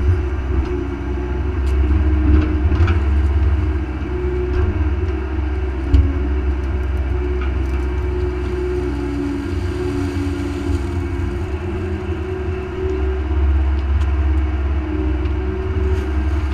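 Mini excavator engine running steadily with a low hum, its tone stepping up and down as the hydraulics move the boom and bucket, with one sharp knock about six seconds in.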